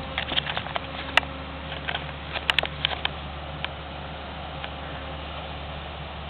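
Combine harvester running steadily at a distance, a constant low drone. Sharp clicks and crackles come close by during the first three seconds, then stop.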